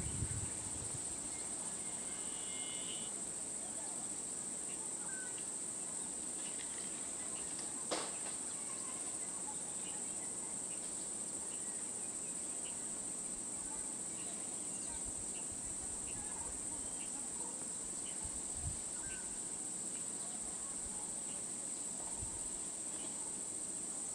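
Steady high-pitched drone of an insect chorus, with a single sharp click about eight seconds in.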